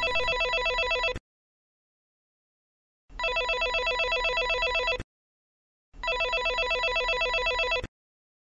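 Electric doorbell ringing with a rapid metallic trill, in rings about two seconds long with short breaks between: one ring ends about a second in, and two full rings follow.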